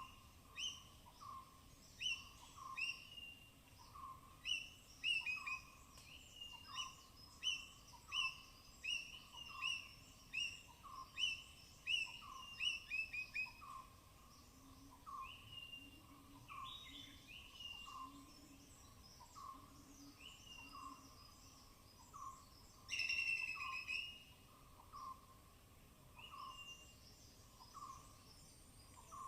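Repeated short chirping calls of forest animals. A lower note repeats steadily, a little more than once a second. Over it, a higher down-slurred chirp comes about twice a second in the first half, then more sparsely, and one louder, harsher call sounds about three-quarters of the way through.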